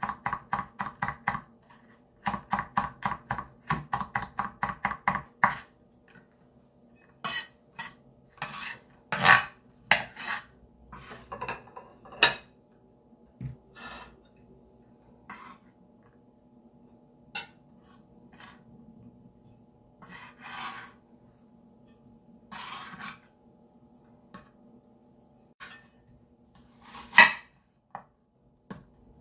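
Chef's knife on a bamboo cutting board: quick rhythmic chopping, about five strokes a second, for the first five seconds or so, then scattered single knocks and scrapes of the blade across the board. Near the end comes a loud single cut as the knife goes into a red onion.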